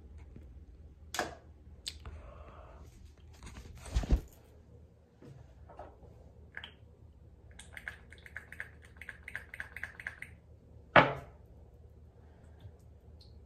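Handling noise as the phone is set down on a hard surface with a low thump, followed by scattered clicks and knocks and a run of quick light ticks, about six a second, lasting a couple of seconds, with one sharp knock near the end.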